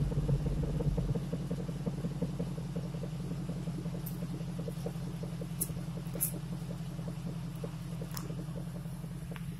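Jeep 4.7 H.O. V8 idling through a Borla exhaust, heard close to the tailpipe: a steady low rumble that eases slowly down as the revs settle. A few faint sharp ticks near the middle.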